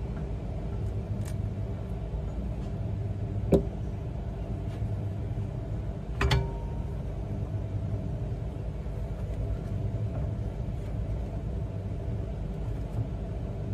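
Steady low hum, broken twice by a sharp metallic clank, about three and a half and six seconds in, the second with a short ring, as the metal hand bait injector knocks against the metal bait mold and its clamp during injection of liquid soft plastic.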